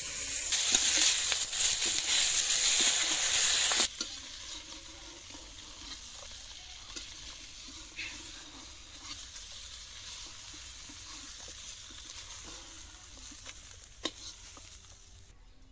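Pieces of snakehead fish frying in oil in an iron wok: a steady sizzle with an occasional scrape or tap of the metal spatula. It is preceded by a louder, harsher hiss that stops abruptly about four seconds in.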